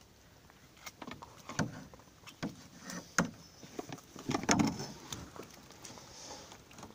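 Gill net being hauled by hand into a metal boat: irregular knocks and slaps of the net, gear and netted fish against the hull and the pile of catch, starting about a second in and loudest around the middle.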